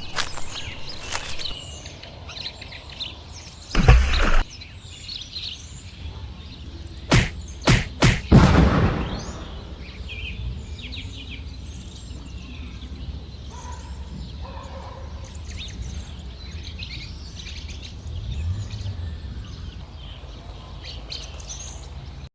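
Birds chirping, with a heavy thud about four seconds in and a quick run of sharp knocks around seven to eight seconds, the last trailing off in a hiss.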